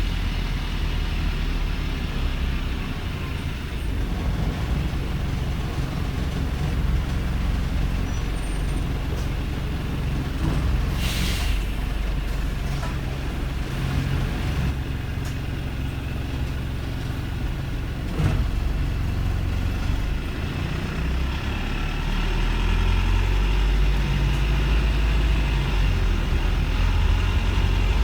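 Wrightbus StreetLite's Daimler OM934 four-cylinder diesel idling roughly, a low uneven rumble. A short hiss of released air about eleven seconds in, and a single knock a little later.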